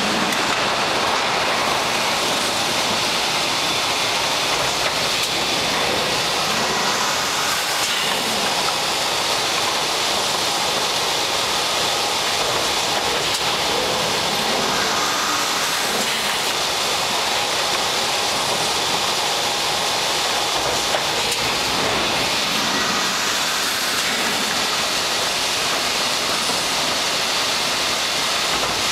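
MAW Nottmeyer continuous drilling machine running: a steady, dense mechanical din with a strong hiss, even throughout, with no single strokes standing out.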